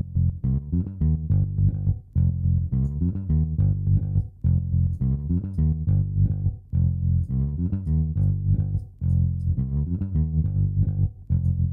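Electric bass guitar line played through Logic Pro X's Tremolo plugin, its volume pulsing in time with the project tempo. With the depth at about 60% and smoothing raised, the level dips rhythmically and softly rather than cutting off in hard chops.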